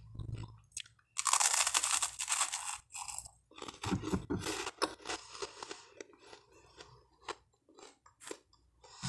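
Close-miked crunching and chewing of buttered toasted French bread. A loud run of crunching starts about a second in, sharper crunches follow around four to five seconds in, and the chewing grows sparser toward the end.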